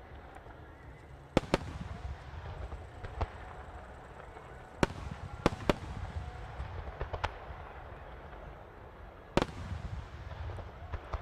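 Starmine fireworks barrage: aerial shells bursting with sharp bangs, in clusters about a second and a half in, around five seconds in, and again near nine and a half seconds. Each burst trails off into a low rolling echo.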